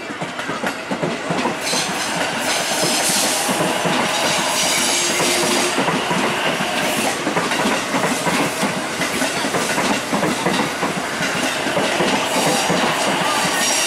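Trains running past on the tracks: a steady rolling rumble with rhythmic wheel clatter over the rail joints.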